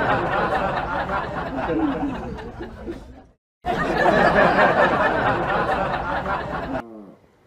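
Crowd laughter and chatter, apparently a short added laugh track played twice with a brief silence between, cutting off shortly before the end.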